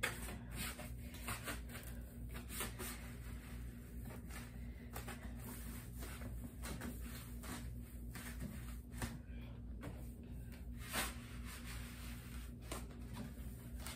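Foam tubes being pushed and slid over metal frame poles: a string of short scraping squeaks and knocks, with a louder one about eleven seconds in, over a steady low hum.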